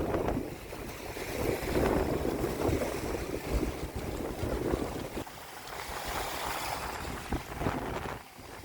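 Strong wind buffeting the microphone over a rush of waves. The gusts ease about five seconds in.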